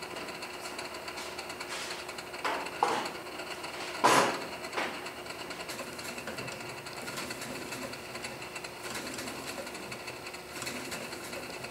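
Antique Essex hot air engine running, its mechanism clicking in a fast, even rhythm, with a sharper, louder clack about four seconds in.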